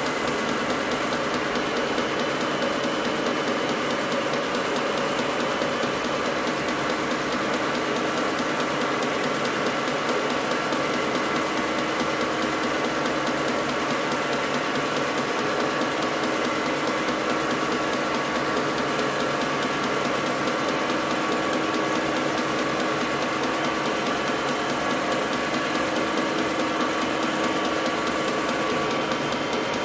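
Vertical milling machine running with its end mill cutting a metal workpiece: a steady machining drone with several constant tones.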